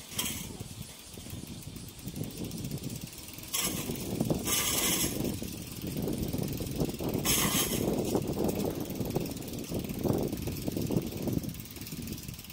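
A small child's bicycle with training wheels being pushed by hand along an asphalt street: the wheels rolling with a rough, ticking rattle. A few short bursts of hiss cut in about 3.5, 4.5 and 7.5 seconds in.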